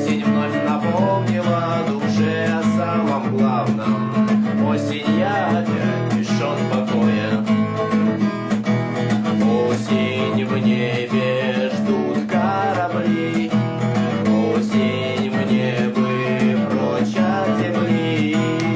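Acoustic guitar playing an instrumental passage, strummed chords with notes ringing over them.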